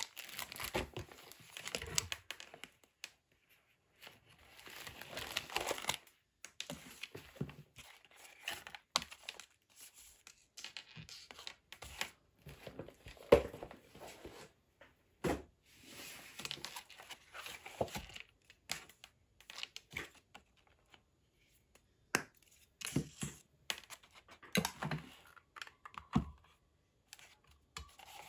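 Paper being handled: irregular rustling, crinkling and tearing of paper scraps and sheets, with scattered short sharp taps, the loudest about halfway through.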